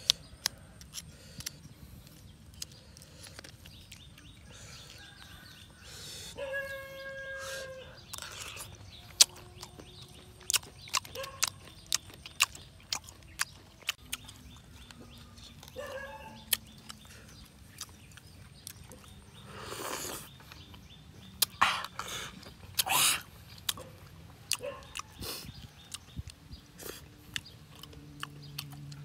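Close-up eating sounds: a metal spoon clicking and scraping against a crab shell, sharp crunches and clicks, and slurping and chewing. The noisiest stretch comes about two-thirds of the way through. Chickens cluck a few times in the background.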